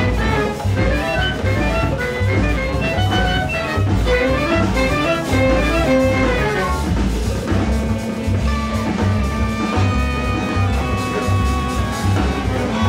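Large jazz ensemble of winds, brass, strings and drums playing. Quick runs of short notes over a steady bass and drum pulse give way, about seven seconds in, to long held chords.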